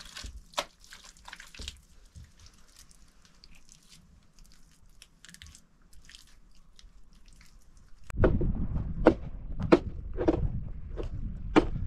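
Faint wet slaps and rubs of hands smoothing mud plaster onto a clay oven; then, about eight seconds in, louder crunching footsteps on stony ground, about two a second, over a low rumble.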